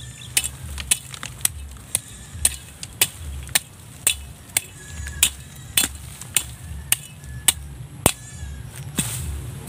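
Machete blade chopping into weedy soil in a steady rhythm, about two strikes a second.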